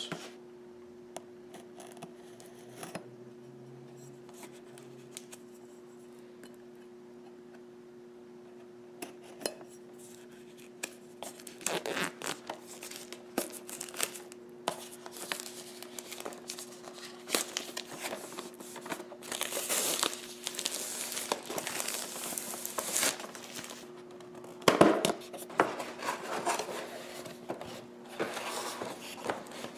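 Clear plastic shrink-wrap being torn and crinkled off a cardboard box, then the box opened and its plastic tray handled: scattered crackles and rustles that start about nine seconds in after a quiet stretch. A faint steady hum runs underneath.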